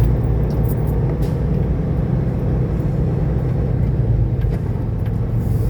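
Semi truck's diesel engine running with a steady low drone, heard from inside the cab.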